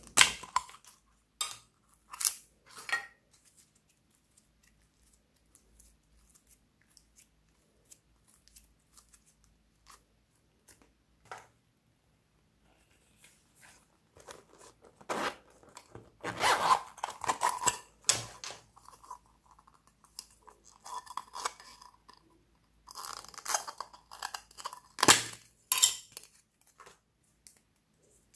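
Close handling noise of small rubber and plastic items being squeezed and pulled apart by hand: sharp clicks and crackles in the first few seconds, a quiet stretch, then two long runs of crackling and tearing in the second half.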